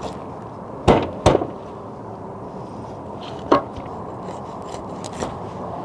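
Knife cutting the head off a striped bass on a cutting board: two sharp knocks about a second in and another about two seconds later, over a steady low background hiss.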